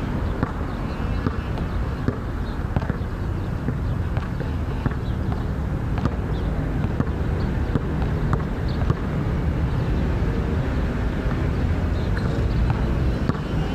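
Steady low engine hum, with a basketball bouncing on a hard outdoor court a few times as short thuds.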